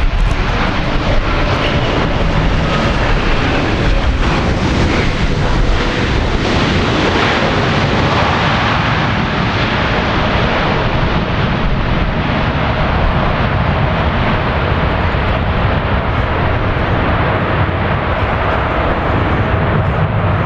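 Engine noise from a Boeing 787-8's Rolls-Royce Trent 1000 turbofans, loud and steady, as the airliner rolls out along the runway just after touchdown. A faint whine runs beneath it.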